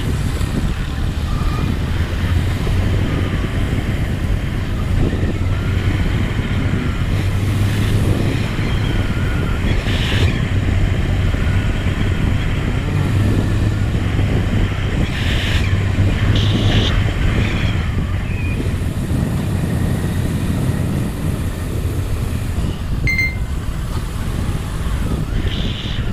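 Motorcycle engine running under way, with wind and road noise; the engine note swells and eases with the throttle through the bends.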